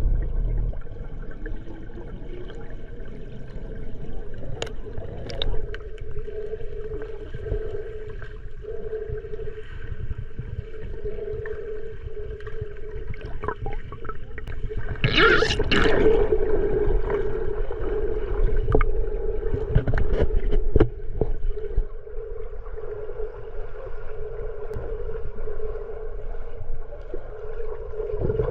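Water gurgling and sloshing close around the camera, over a steady droning hum, with a louder splash about halfway through.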